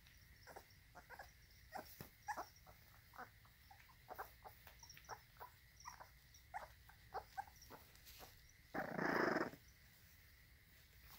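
Young American Bully puppies eating raw ground beef: many short wet smacks and small squeaks and grunts, with a louder rough noise lasting under a second about nine seconds in. Crickets chirp faintly in the background.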